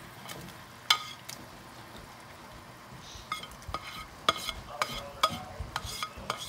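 Cooked shrimp being moved with metal tongs into a stainless steel sauté pan of hot butter sauce: a soft sizzle underneath, one sharp clink about a second in, then a quick run of ringing clinks of the tongs against the pan and plate in the second half.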